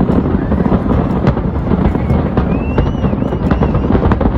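Fireworks bursting in a dense barrage: a rapid crackle of many small pops over a continuous low rumble of booms, with a few short high whistling tones about halfway through.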